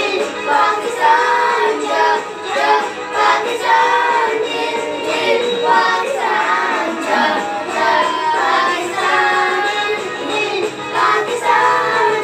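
Group of children singing a Pakistani national song (milli naghma) together, with music playing along.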